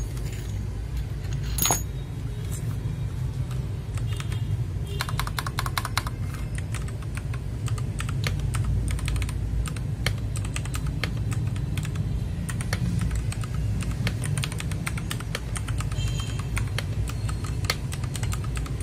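Fast, continuous typing on a mechanical keyboard: a dense run of key clicks and clacks, played as a sound test of the keyboard, over a steady low hum.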